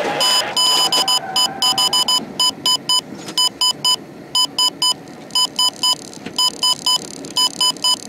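Rapid electronic beeping: short high-pitched beeps, several a second, in uneven runs with short gaps. Underneath is vehicle and road noise that is louder for the first two seconds and then drops away.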